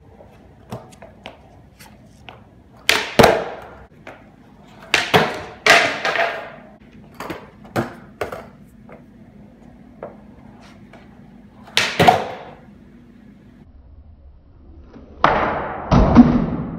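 Powell Peralta Mike Vallely skateboard on a concrete floor: wheels rolling with a faint rumble, broken by a series of sharp clacks and slaps as the tail pops and the deck lands, a loud pair near the end. The hits echo in a bare room.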